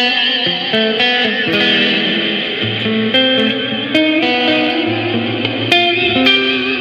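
Electric guitar picking a slow line of single notes through an EarthQuaker Devices Astral Destiny octave reverb pedal. Each note rings on into a sustained reverb wash that hangs under the following notes.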